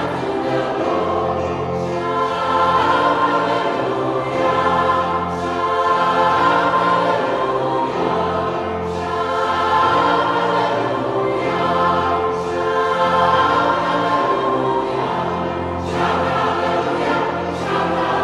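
Gospel choir singing in full voice, accompanied by an electric keyboard.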